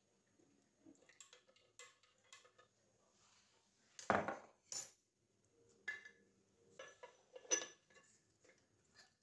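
Ceramic crockery being handled: a mug, its lid and a teapot clinking and knocking as they are set down. A few light taps, then two louder knocks about four seconds in, and more clinks later.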